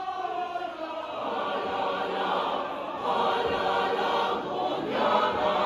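A large mixed choir of men's and women's voices singing together in harmony, holding long notes. It swells louder about three seconds in and again near the end.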